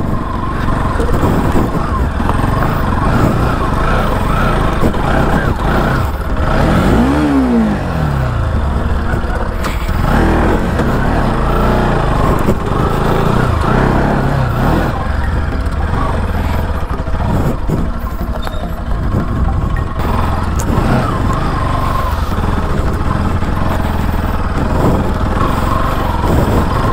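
A motorcycle engine running hard under load as the bike is ridden up a rough off-road slope, its revs rising and falling sharply about seven seconds in. The rear wheel skids on the climb.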